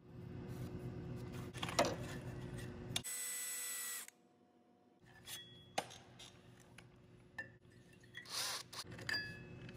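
Cordless drill with a center-drill bit cutting speed holes into the fins of a 1937 Harley-Davidson 45's aluminum cylinder head. It runs in short stretches: a steady run at first, a louder bright hissing stretch about three seconds in, then quieter clicks and scrapes of metal.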